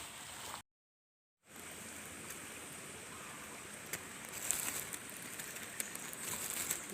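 Steady noise of outdoor water with scattered small clicks and ticks. The sound cuts out to total silence for about a second near the start.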